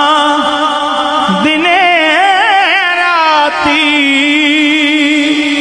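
Devotional Punjabi Sufi song: a singer draws out long, wavering, ornamented notes without words over a steady held drone note.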